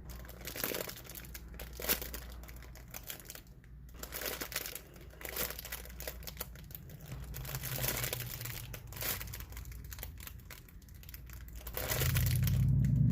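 Plastic packaging crinkling irregularly as a handmade foam squishy is handled. A low hum swells near the end.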